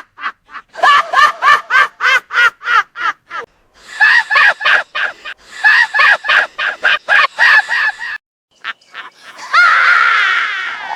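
Cackling witch laughter: three runs of rapid, high-pitched pulses at about five a second, then a long, wavering high-pitched cackle near the end.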